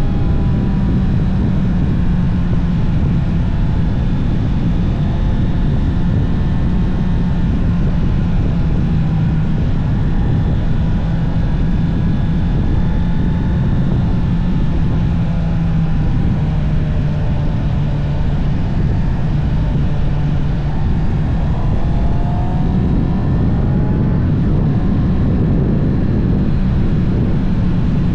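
Honda CB650R's inline-four engine running steadily through its stock exhaust while riding, its pitch dipping slightly and rising again, with wind rushing over the microphone.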